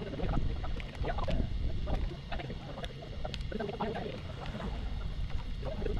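A cat eating, many small irregular crunching clicks, over a steady low rumble.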